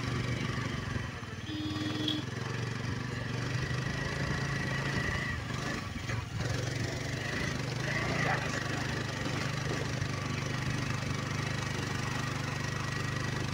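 Motorcycle engine running steadily under the load of three riders, a constant low hum with a thin whine above it.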